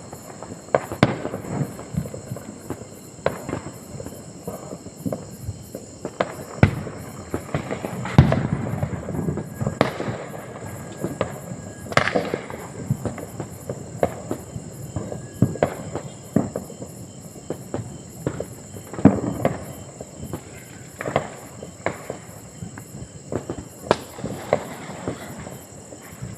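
Distant firecrackers going off irregularly, many sharp bangs often less than a second apart, some with a rolling echo, over a continuous crackle. The louder bangs come about eight, twelve and nineteen seconds in.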